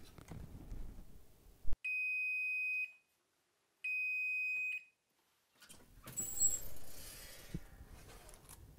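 Electric oven's digital timer beeping: a click, then two long, high, steady beeps about a second each, the alert that the timer has run out. A few seconds later, scraping and rattling as the metal baking pan is drawn off the oven rack.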